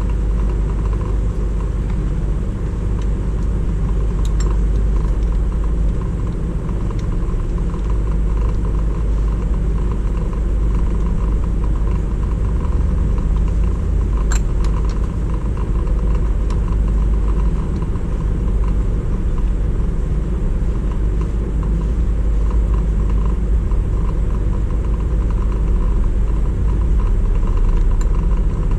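2007 Chrysler Aspen's engine running steadily, a deep continuous sound that does not change in pitch, with one brief click about halfway through.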